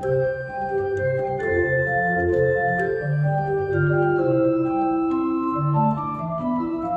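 Pipe organ playing several held notes at once that move from chord to chord over a bass line.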